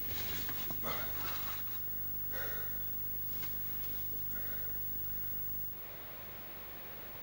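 A person's breathing and short scuffs of hands, knees and clothing on rock and grit as he crawls through a low cave passage, over a steady low hum. The scuffs are busiest in the first couple of seconds, and the hum changes character near the end.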